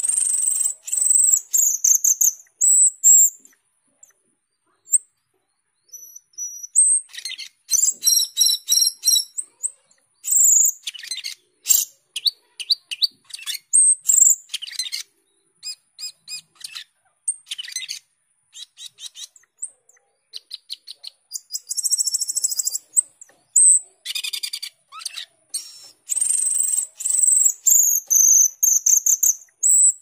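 Asian glossy starling singing: a long run of high whistles, chirps and rapid clicking chatter, delivered in bursts with short pauses between them.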